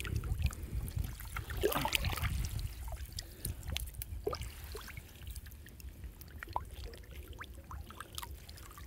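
Water trickling and sloshing as a gill net is hauled out of a muddy canal by people wading in it, with scattered small drips and splashes. The sound grows quieter about halfway through.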